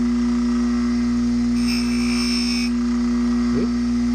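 Powered chain-sharpening grinding wheel running steadily with a strong motor hum. About a second and a half in, a higher-pitched whine rides on top for about a second.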